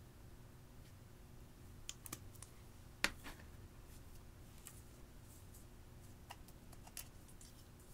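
Scattered small clicks and taps of glitter vials being handled and tapped around a glass bowl, with the loudest single knock about three seconds in, over a faint steady hum.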